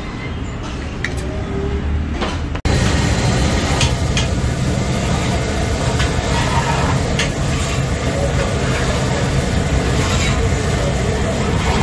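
Steady background noise with a low rumble and a few faint clicks. An abrupt cut a little over two seconds in makes it louder and brighter, with a hiss on top.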